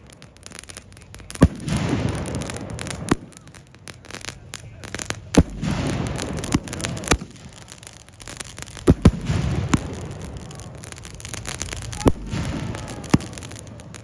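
A salute cake firework firing aerial salutes: about nine sharp, loud bangs at uneven intervals of one to three seconds, two in a quick pair, each followed by a rumbling echo.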